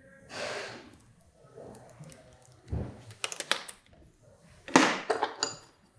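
A man breathing out hard through his nose near the start and again, louder, near the five-second mark. Between and after the breaths come sharp clicks and light knocks as the plastic handlebar switch housing and its wiring are handled.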